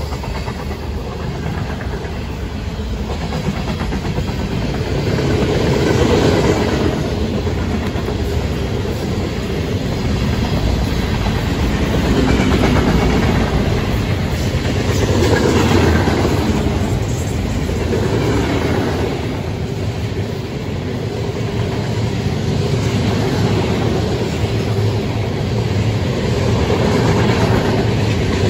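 Freight cars of a passing freight train rolling by at speed: a steady rumble of steel wheels on the rails with a clickety-clack, swelling and easing in loudness every few seconds.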